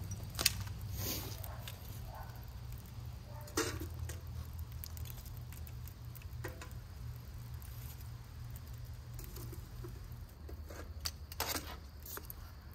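Metal tongs clicking and clinking as embers are put into the firebox of a stainless tea samovar, a handful of scattered clicks over a steady low hum.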